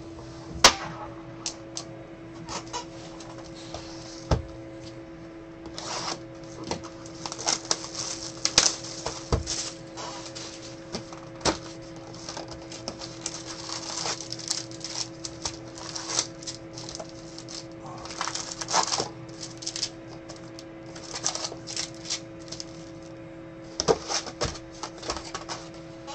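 Baseball card packs being ripped open and the cards handled: irregular bursts of crinkling, tearing wrapper and sharp clicks of card edges and cardboard. A steady low hum runs underneath.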